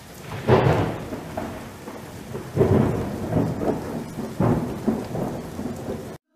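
Thunderstorm sound effect: three rolling thunderclaps about two seconds apart over a steady hiss of rain, cutting off suddenly near the end.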